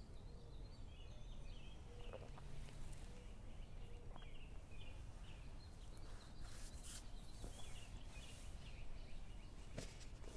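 Faint outdoor ambience: birds chirping in the background over a low steady rumble, with a few soft clicks.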